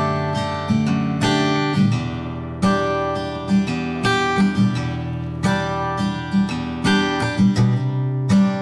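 Background music: gentle acoustic guitar, strummed and plucked in a steady rhythm.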